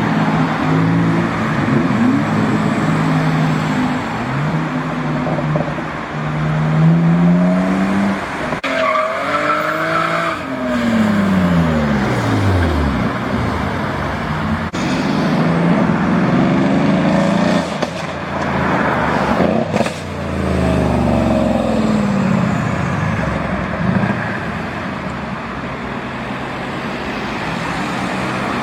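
Modified performance cars accelerating and driving past one after another, engines revving up and down, one car's note falling as it passes about ten seconds in. A few sharp cracks from the exhausts stand out in the middle of the stretch.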